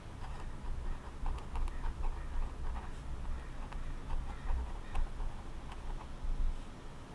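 A dog barking repeatedly in the distance over a steady low outdoor rumble, with a few small sharp clicks.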